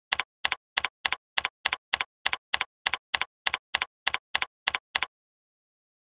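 Computer keyboard keystrokes typing out a word at an even pace, about three a second. There are some sixteen key clicks, each a quick double click, and they stop about five seconds in.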